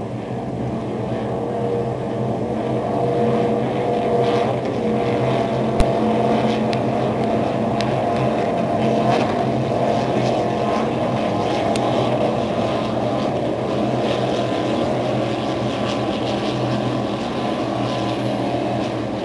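Racing offshore powerboats' engines, a steady, even drone, with one sharp click about six seconds in.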